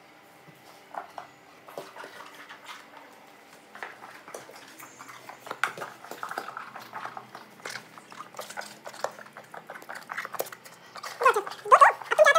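German Shepherd moving about and playing on a tiled floor: scattered clicks, taps and scuffles, then about eleven seconds in a loud, wavering whine that rises and falls for over a second.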